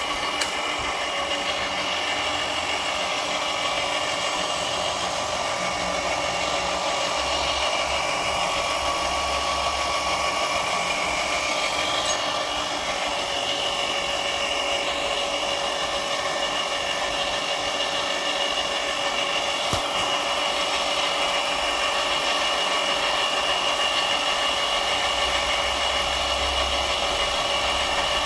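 Homemade filament extruder's drive motor running steadily while extruding filament: a constant machine hum with steady whining tones and no change in speed.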